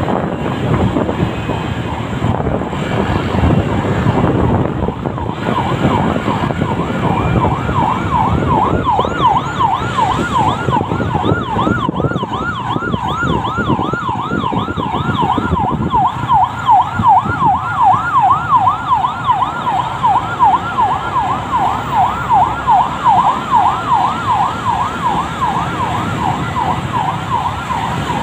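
An electronic siren in a fast yelp, its pitch sweeping up and down several times a second. It starts about six seconds in, over the wind and road rumble of a moving motorcycle, and pulses more strongly in the second half.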